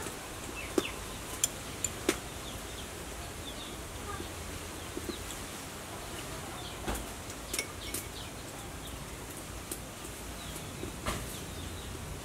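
Metal spoon clicking against a glass soup bowl: a quick cluster of clinks in the first two seconds and a few more later on. Faint bird chirps run in the background.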